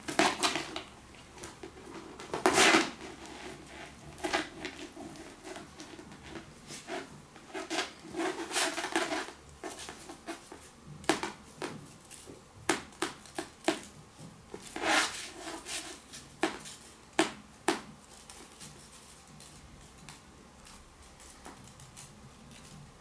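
A kitten playing with a feather wand toy: irregular scuffs, taps and rustles as its paws and the feathered toy scrape and slap on the floor. The scuffling comes in flurries, then thins out to a few light taps near the end.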